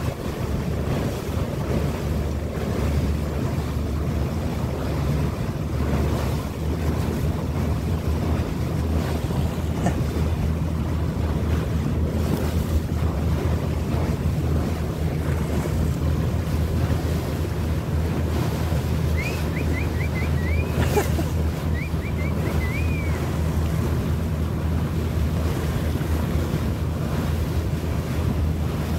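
Boat engine running steadily under the rush of water and wind buffeting the microphone. About two-thirds of the way through comes a short run of thin, high chirping calls and a single sharp click.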